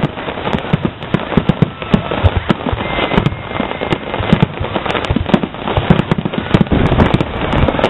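Aerial fireworks shells bursting with dense crackling, many sharp pops a second over a steady rumble of explosions.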